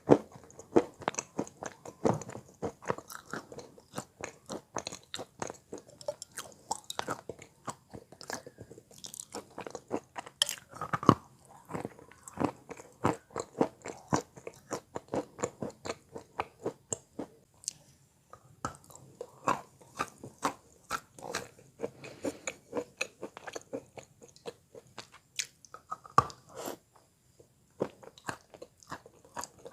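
Close-up chewing and crunching of wet Belogorye chalk: a dull, muffled crunch repeated several times a second, pausing briefly near the end.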